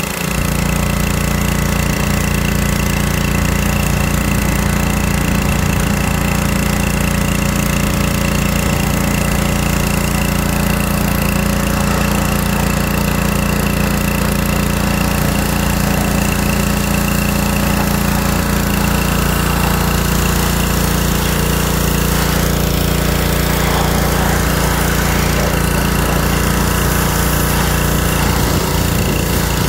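Small gas engine of a pressure washer running steadily at one speed, with the hiss of the high-pressure water jet spraying onto a car's body.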